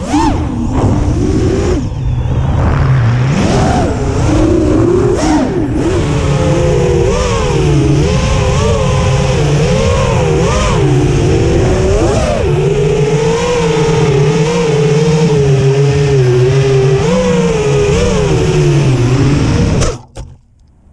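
FPV quadcopter's brushless motors and propellers whining, heard from the onboard camera, the pitch wavering up and down with the throttle. Near the end there is a short knock as it hits the snowy ground, and the motors cut off suddenly.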